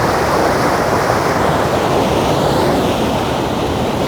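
Waterfall heard close up: a loud, steady rush of heavy falling water. The hiss eases slightly about halfway through.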